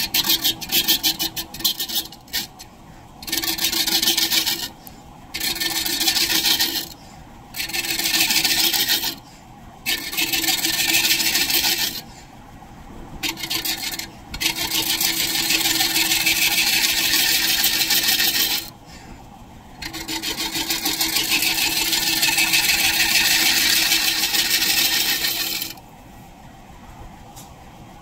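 Large scraper cutting the face of a spinning maple disc on a wood lathe: about eight loud scraping passes, each one to five seconds long with short pauses between, over the steady hum of the running lathe. The passes stop about two seconds before the end.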